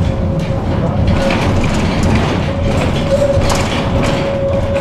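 Tram running, with a steady low rumble and rattle, a constant whine held throughout, and a few short clicks.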